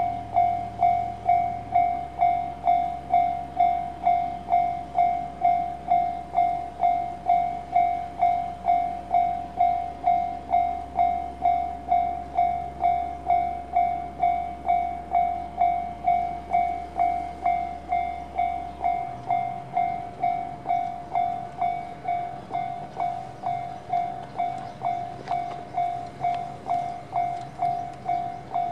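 A bell-like warning tone dinging evenly about one and a half times a second, each ding dying away quickly, over a low steady hum that shifts in pitch about two-thirds of the way through.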